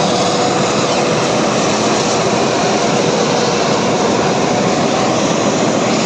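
Zoomlion crawler combine harvester running steadily as it cuts and threshes rice: a dense, even mechanical drone with a faint steady whine.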